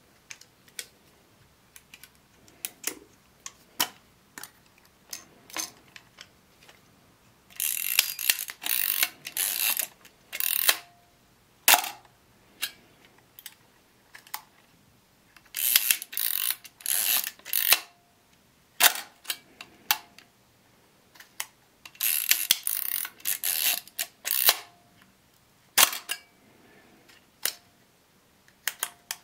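Zenit 12XP 35 mm film SLR being worked by hand: its mechanism gives scattered small clicks and three runs of dense ratcheting lasting two to three seconds each, with louder single snaps between them as the shutter and controls are tried.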